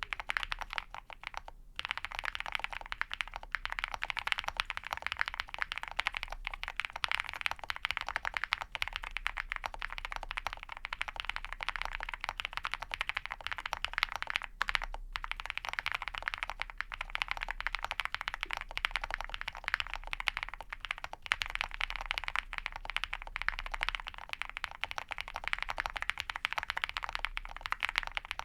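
Continuous fast typing on a Spring mechanical keyboard with a POM plate, lubed (Krytox 205g0) and filmed Ca Phe Sua Da linear switches and PBT keycaps: a dense stream of keystroke clacks, pausing briefly about a second and a half in and again around halfway.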